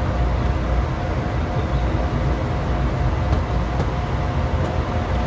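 Steady cockpit noise of a Bombardier Challenger 350 twin-turbofan business jet in flight: an even low rumble of airflow and engines with a faint steady hum over it.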